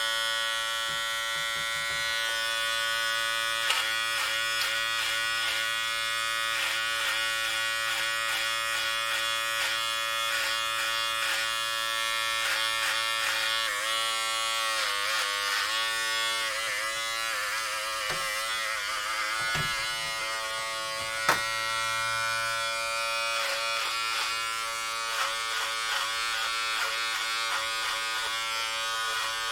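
Electric hair clippers running and cutting: a steady buzzing hum whose pitch wavers and dips several times through the middle, with one sharp click a little after that.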